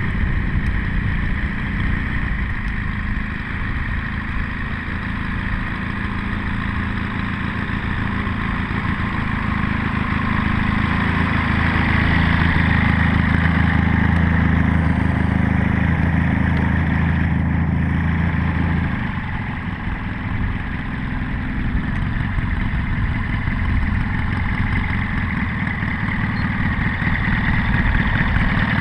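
Valach VM120 B2-4T four-stroke twin engine of a 40%-scale Bö 209 Monsun model plane running at low throttle as the plane taxis on grass. The engine note grows louder from about ten seconds in and drops back to idle just before twenty seconds.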